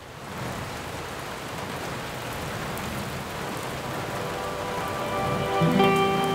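Steady rain falling on foliage, fading in at the start. Near the end a music track comes in with long held notes over the rain.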